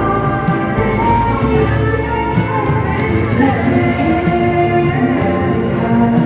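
Loud show music with a steady beat, held melody lines and a guitar edge, as played for a fireworks show.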